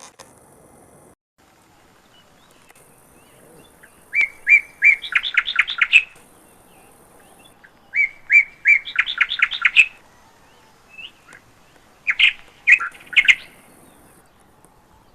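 A songbird singing: two similar phrases, each opening with a few spaced notes and running into a quick series of higher notes, then a shorter burst of notes near the end.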